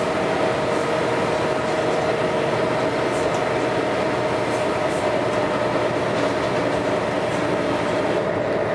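Scania L113CRL bus's 11-litre straight-six diesel running hard, a steady loud drone with a constant whine over it.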